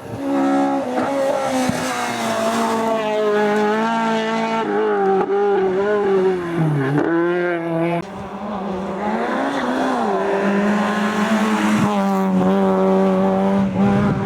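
Racing car engine at full throttle, revs rising and falling through gear changes, with a deep drop in revs about seven seconds in and a short break in the sound about a second later.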